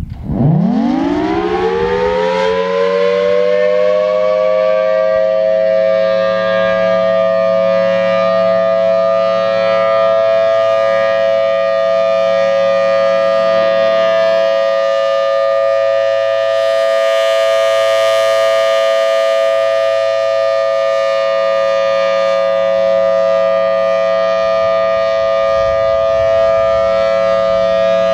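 Federal Signal Thunderbolt 1000T outdoor warning siren winding up, its pitch rising fast over the first two seconds, then holding a steady, pretty loud two-note tone: the siren's alert signal.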